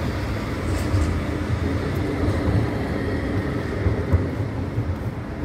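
A red low-floor light rail tram running past close by: a steady rumble of wheels on rail with a faint steady electric hum over it.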